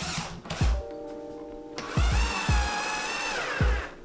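Background music with a steady kick-drum beat. About two seconds in, a power drill runs for about two seconds, its whine rising as it spins up and falling as it stops.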